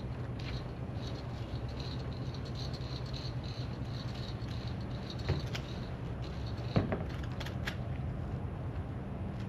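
Light rattling and clicking of a pulley kayak lift's rope and hardware, with two knocks, the louder one about seven seconds in, over a steady low hum.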